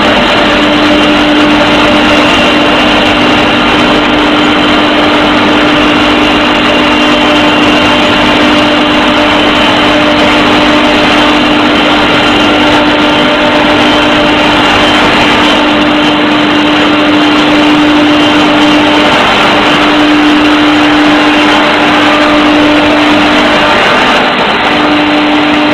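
Sawdust rotary dryer line machinery running: loud, steady machine noise with a constant hum. The hum falters briefly twice near the end.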